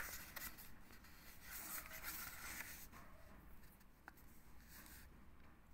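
Faint rustling of paper book pages as a hand turns and brushes over them, with a light tap about four seconds in.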